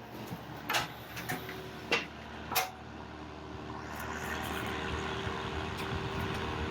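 A few sharp clicks, then a 1500 W Costway space heater's fan starts up about two and a half seconds in, building to a steady rush of air with a low motor hum. The heater is running on the tip-over switch whose contacts were just bent to touch.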